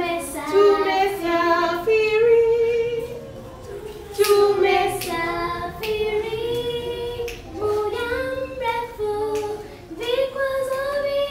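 A child singing alone and unaccompanied in an audition: a single voice carrying a melody in short phrases with brief pauses for breath.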